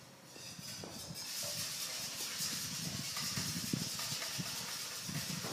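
A steady hiss that builds up over about the first second and then holds, with faint irregular knocks beneath it.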